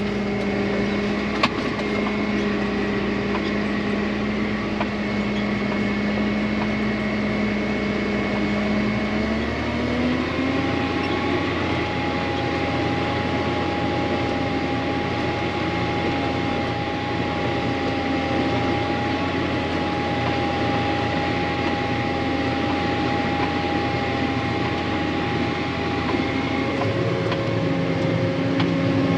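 Tractor engine running, heard from inside the cab, with a thin steady whine above it. About ten seconds in, the engine speed steps up and holds at the higher pitch.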